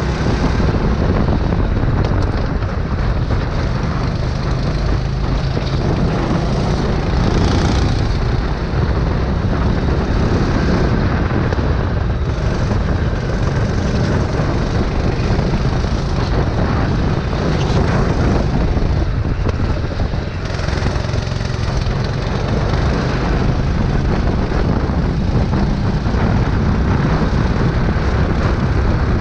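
Go-kart engine at racing speed, picked up by a camera mounted on the kart. It runs loud and steady, with a low rumbling note that wavers slightly.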